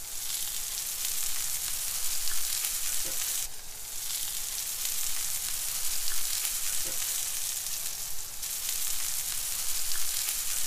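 Coated tusk fish pieces sizzling in oil on a Weber gas barbecue's hotplate: a steady hiss that dips briefly twice.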